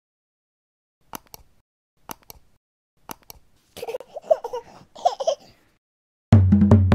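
Three quick double mouse clicks about a second apart, then a baby giggling for a second and a half. Music starts near the end.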